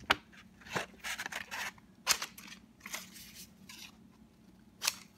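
A sheet of 1200-grit sandpaper being handled and cut with scissors: a series of short, crisp snips and paper rustles at irregular intervals.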